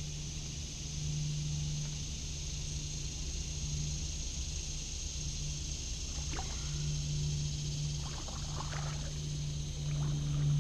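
Kayak paddling on still water, with short paddle splashes and drips in the second half. Under it runs a steady low hum, along with a steady high-pitched hiss.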